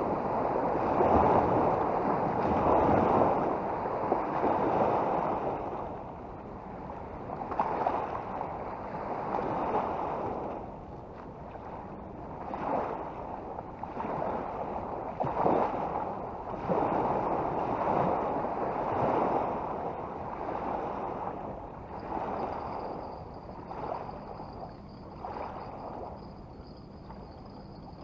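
River water lapping and splashing close by, in uneven surges every second or two.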